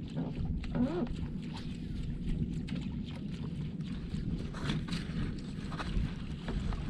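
Low, steady rumble of water and wind around a small fishing boat, with light knocks and clicks scattered through.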